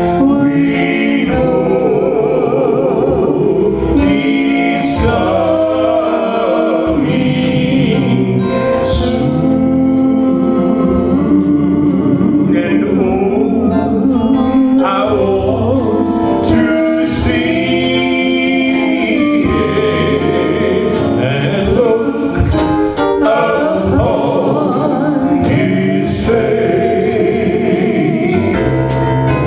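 Gospel worship song: a group of voices singing together over instrumental backing, with occasional percussion strikes.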